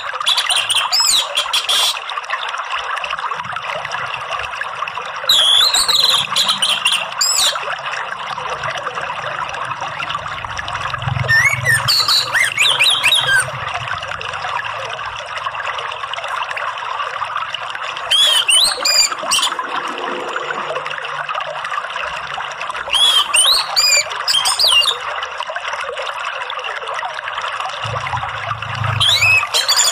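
Orange-headed thrush singing in six short bouts of high, gliding song, roughly every five to six seconds, over a steady hiss of running water.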